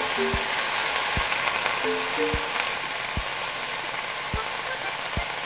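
Pork belly and bean sprouts sizzling in a hot cast-iron braiser, a steady hiss that eases a little about halfway through. Soft background music with a steady beat plays over it.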